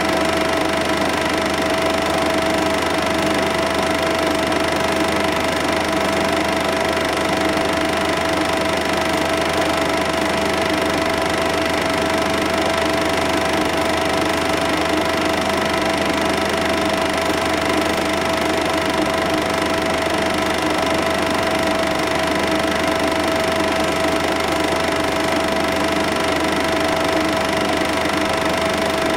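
Cine film projector running, its motor and film transport giving a steady mechanical whirr with a constant whine.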